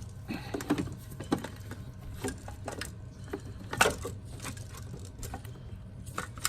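Scattered clicks and knocks of a repaired ABS control module being handled and fitted into place, the sharpest knock about four seconds in, over a steady low hum.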